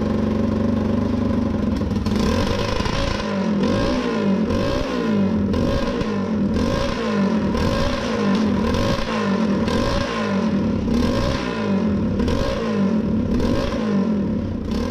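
The 250cc engine of a riding mower running and revving up and down in quick, regular surges about twice a second. It runs rough ('comme une patate'): the owner says it only keeps running on half choke and stalls unless the throttle is held high.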